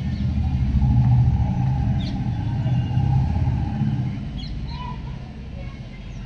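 Low engine rumble of a motor vehicle nearby, swelling about a second in and fading after about four seconds, with faint high chirps over it.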